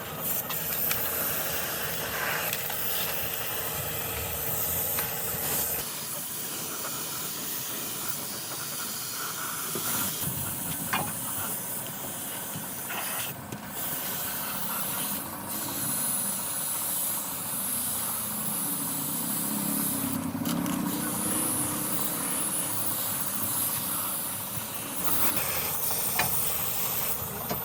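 A steady, loud hiss, like a jet of air or spray in a workshop, cut off briefly a few times in the middle.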